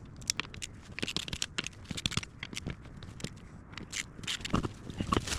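Irregular scraping, clicking and crackling from handling, with scattered sharp knocks at no steady rhythm.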